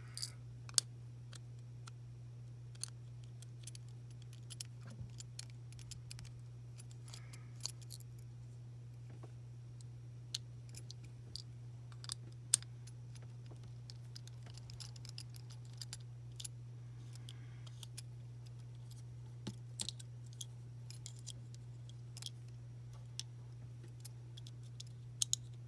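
Scattered light clicks and taps of small plastic parts and a tool being handled as a toy string launcher is taken apart, over a steady low hum.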